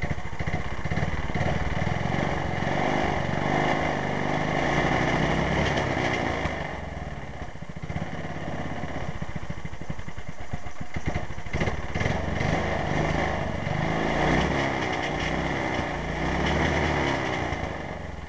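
Briggs & Stratton 5 hp single-cylinder small engine running, its stock setup before a rebuild. The speed rises and falls, dropping back about a third of the way in, picking up again later and dropping off near the end.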